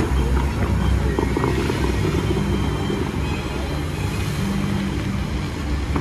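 Bellagio fountain show: music playing over the show's loudspeakers, mixed with the steady hiss and splash of the water jets.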